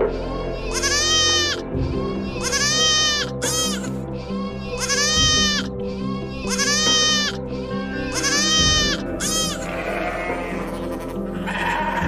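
Goats bleating again and again, about eight high, wavering bleats one after another, over background music.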